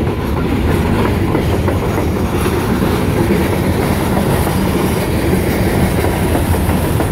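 Loaded CSX coal hopper cars rolling past at close range: a steady heavy rumble of steel wheels on rail, with wheel clicks over the rail joints.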